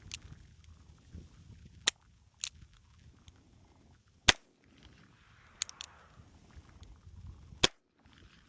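Revolver gunshots: three sharp shots spaced roughly two to three seconds apart, with fainter cracks in between.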